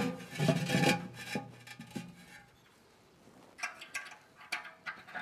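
A ceramic fire ring knocks down into a kamado grill's ceramic firebox, then scrapes and grates, ceramic on ceramic, as it is worked into place. A few light clicks and scrapes follow near the end.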